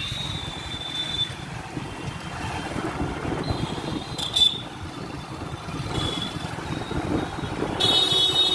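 Busy town-road traffic heard from a moving vehicle: a steady engine and tyre rumble with wind on the microphone. Several short high-pitched horn beeps sound over it, the loudest near the end.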